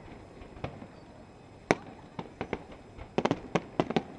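Fireworks bursting: scattered sharp bangs, the loudest about a second and a half in, then a quick run of cracks near the end.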